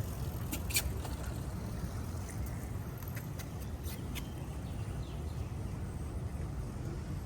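Steady low rumble of city traffic, with a few short sharp clicks about half a second in and again around four seconds in.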